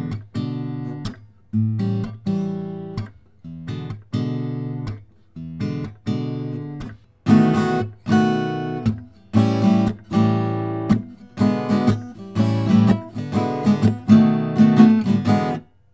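Acoustic guitar strummed with a pick, chords ringing out between sharp strokes; the strums are spaced out at first, then come louder and quicker about halfway through, and stop just before the end. It is heard through a budget USB condenser microphone aimed near the 12th fret, which gives a mid-heavy tone.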